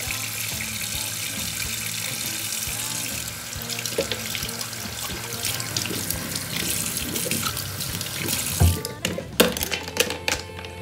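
Tap water running steadily into a bowl of soapy water as makeup brushes are rinsed and scrubbed under the stream. A few knocks and clatters near the end.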